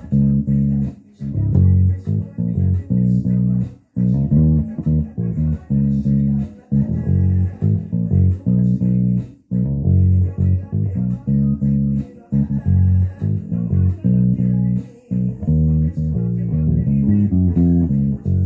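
Electric bass guitar played with the fingers: a bassline of plucked low notes in a steady rhythm, with a few short breaks between phrases.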